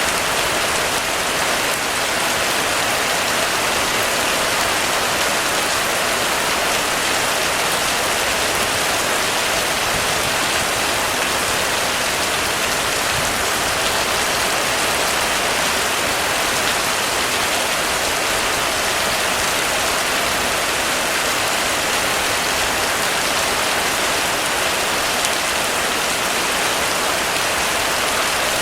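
Heavy rain falling steadily on a roof, an even, unbroken hiss of drops that holds level throughout.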